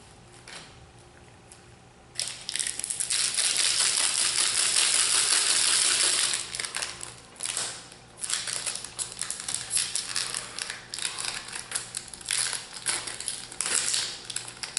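Foil wrapper of a Magic: The Gathering booster pack crinkling as it is torn open by hand. A long continuous crinkle starts about two seconds in, followed by a run of shorter crinkles.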